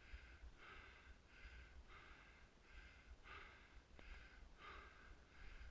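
Faint, rhythmic heavy breathing of a player on the move, about two breaths a second, over a low rumble of wind or handling noise.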